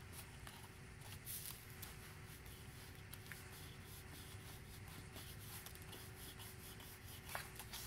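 Faint rustling and rubbing of paper card under the hands as the card is pressed and smoothed down to stick the acetate in place.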